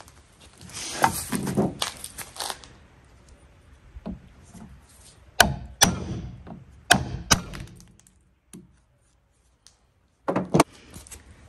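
Handling clatter of a metal test plate at the bench clamps, then a series of sharp cracks, four within about two seconds and another near the end, as a sharp hand punch is pushed through the cured epoxy sealing holes in an aluminum plate. The epoxy seal breaks out with less force than expected.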